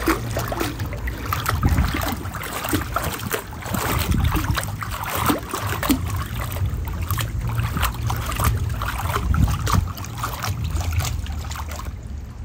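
Swimming-pool water sloshing and splashing as feet kick and stir it, with irregular small splashes and a low wind rumble on the microphone throughout.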